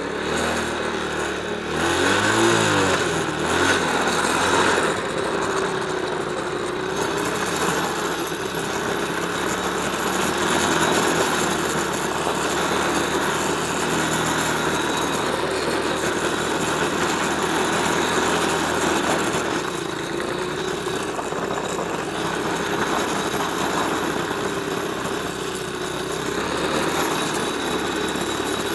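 Small 125 cc quad (ATV) engine running under way, its pitch rising and falling through the first few seconds and then holding fairly steady, over a constant rushing noise.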